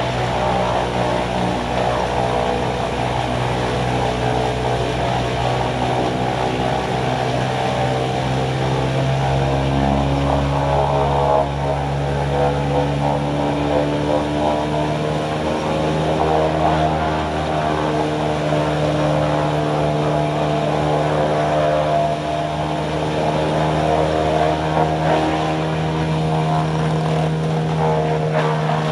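Wood chipper's engine running steadily under load, its pitch rising slightly about ten seconds in and again a few seconds later.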